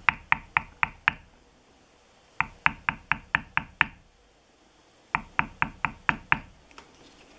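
A mallet striking a metal leather stamping tool held upright on leather, sharp taps at about four a second. There are three runs of six or more strikes each, with short pauses between as the tool is moved along the lines.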